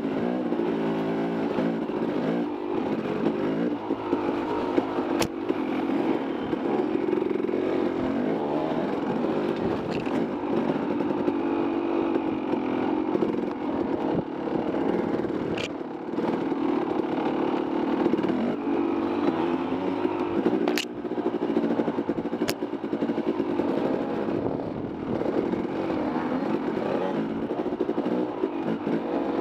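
Dirt bike engine running, its pitch rising and falling with the throttle, with a few sharp clicks or knocks scattered through.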